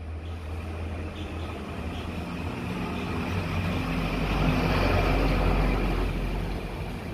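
A motor vehicle's engine rumbling past: a low, steady drone that grows louder to a peak about five seconds in and then fades.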